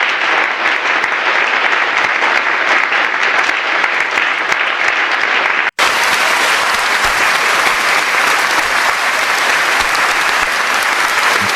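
AI-generated sound effect of a crowd applauding: steady, dense clapping that drops out for an instant about halfway through, then carries on the same.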